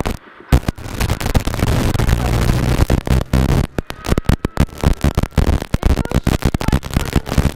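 Rally car engine running hard, heard from inside the cockpit, its note broken up by many sharp, choppy breaks. The engine sound falls away for a moment just after the start, then comes back suddenly and keeps running.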